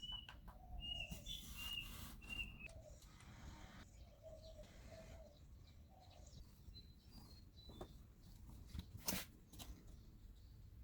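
Faint bird calls: short high chirps repeated through the first few seconds, lower short notes, and a few falling high notes later. A single sharp click about nine seconds in is the loudest sound.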